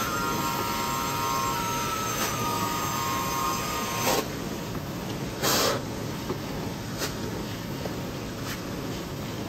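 Truck-mounted carpet-cleaning machine's vacuum pulling through the extraction wand as it is drawn over the carpet: a steady rushing suction with a high squealing whistle that stops about four seconds in, followed by two short loud whooshes.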